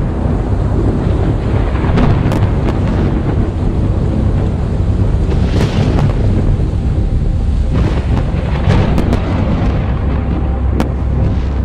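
Aerial firework shells bursting: several sharp bangs a second or more apart over a continuous thunder-like rumble.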